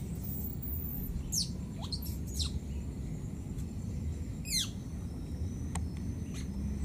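A few short, high-pitched chirping calls, each sliding steeply down in pitch, spaced a second or two apart over a steady low rumble.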